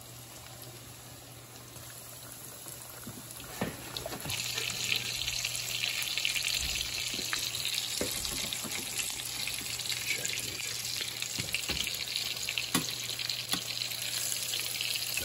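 Breaded pork cutlets shallow-frying in hot canola oil: a steady sizzle with scattered crackles, quiet at first and much louder from about four seconds in. A few light knocks near the end as metal tongs turn the cutlets.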